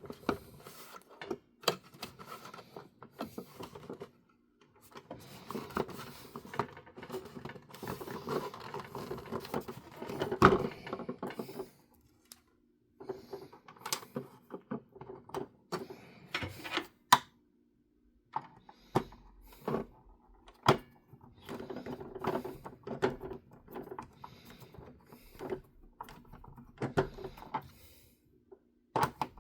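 Handling noise of a small screw being driven into a plastic toy car body with a screwdriver: irregular clicks, knocks and scraping of plastic and metal, with short pauses between bouts of turning.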